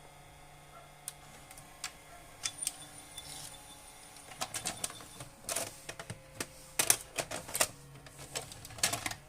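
Panasonic HD100 video cassette recorder's tape-loading mechanism at work: irregular mechanical clicks and rattles of its levers and gears as the cassette goes in and the tape threads, over a faint steady motor hum.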